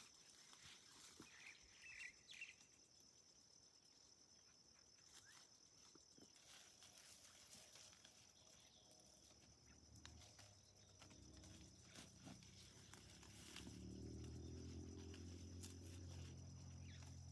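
Faint field ambience: insects keep up a steady high-pitched pulsing drone, with a few short chirps early on. About ten seconds in, a low motor hum comes in and grows louder toward the end.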